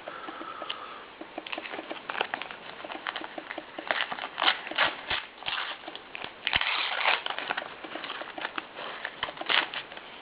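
Paper sticker packet being torn open and crinkled by hand, with the stickers inside being shuffled: a run of irregular crackles and rustles.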